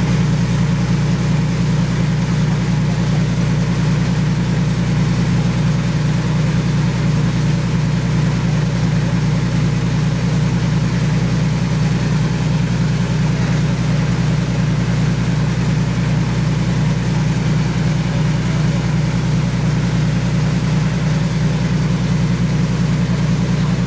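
The engine of a restored WWII M1A1 Ward LaFrance wrecker truck idling steadily, with an even low hum that does not change.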